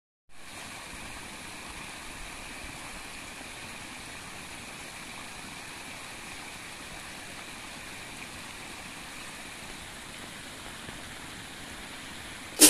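Water pouring steadily from a small spillway down a terrace bank into a flooded rice paddy, an even splashing and trickling.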